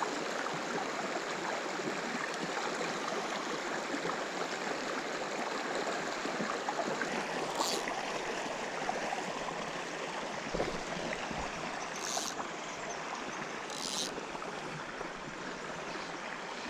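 Small creek running over rocks: a steady rush of water, with three brief high hisses over it about halfway through and near the end.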